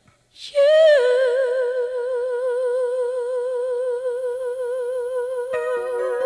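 Ballad music: after a brief pause, a singer holds one long note with steady vibrato for about five seconds, and soft accompaniment comes in near the end.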